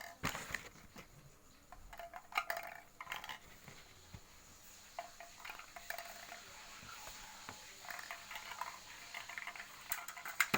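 Small hard plastic toy parts clicking and rattling as a toy shooter is handled and worked. The sounds are faint and irregular, with a few sharper clicks scattered through.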